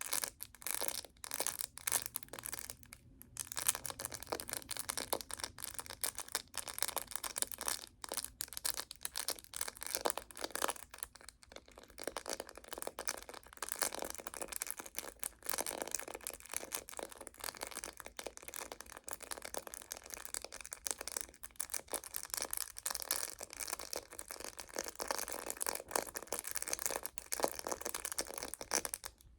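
Close-miked crackling and clicking from objects being handled: a dense, unbroken run of small clicks, with brief pauses about three and eleven seconds in.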